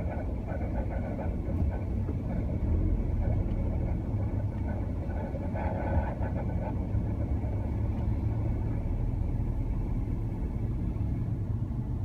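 Subaru Legacy (BR9) engine running with the abnormal noise it has made since a new original-equipment belt was fitted: a steady low rumble with an uneven chatter over it, louder for about a second around six seconds in.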